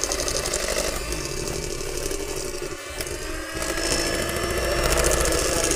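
Wire balloon whisk beating thin kutsinta batter in a stainless steel pan: a steady, fast run of scraping and sloshing as the wires strike the metal.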